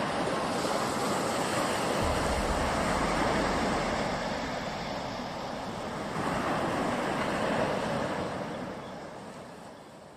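Ocean surf washing in, a steady rushing noise that swells about six seconds in and then fades away toward the end.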